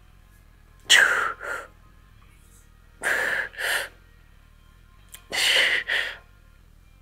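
A man breathing hard close to a clip-on mic from the strain of a final set of lifting, with a forceful double exhale three times, about every two seconds.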